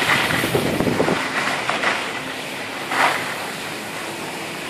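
Skis sliding and scraping over packed snow, with wind rushing on the microphone; a short, louder hiss comes about three seconds in.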